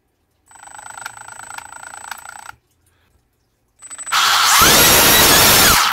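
A 6,000 kV brushless motor spins a small 3D-printed Roots blower in two short bursts. The first is a moderate run of about two seconds with a steady whine. After a pause comes a much louder full-speed burst of about two seconds, fast enough to fling the grease out of the blower, and it cuts off suddenly.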